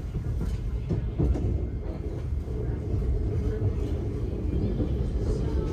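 Steady low rumble of a moving Thameslink electric train, heard from inside the carriage as it runs along the track.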